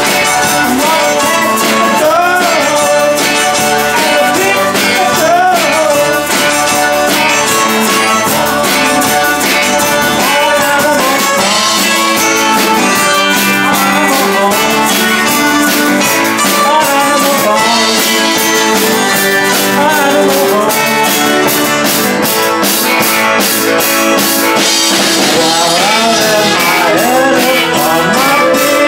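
Live rock band playing: electric guitars and a drum kit with steady cymbal strokes, a melodic line bending up and down in pitch over the top.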